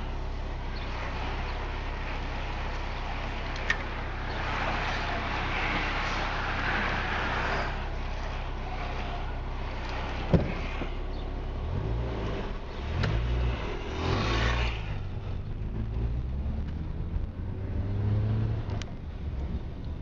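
Motor vehicle running with road and wind noise, the engine note rising and falling in the second half, with two sharp knocks, one about four seconds in and a louder one about ten seconds in.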